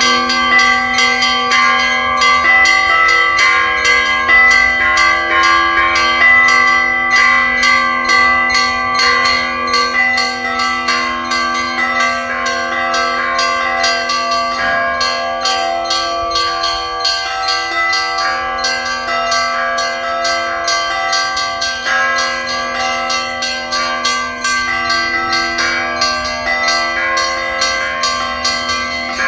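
Russian church bell ringing (kolokolny zvon): small bells struck in rapid, steady strokes, about four a second, over the long ringing tones of larger bells.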